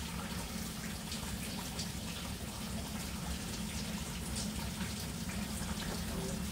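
Fluid running steadily out of the bus engine's drained cooling system, with scattered faint ticks and drips over a steady low hum.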